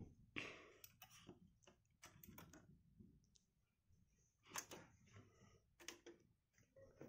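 Faint, scattered clicks and light knocks from hands handling a DJ turntable and its tonearm, the two loudest a little past the middle and near the end.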